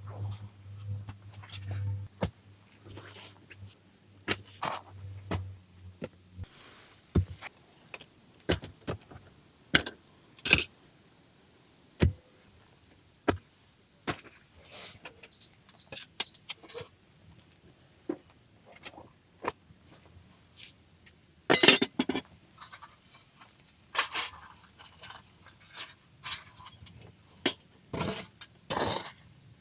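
Metal camp gear being handled: irregular clinks, knocks and scrapes, with a louder clatter about 22 seconds in and again near the end. A low steady hum underneath stops about six seconds in.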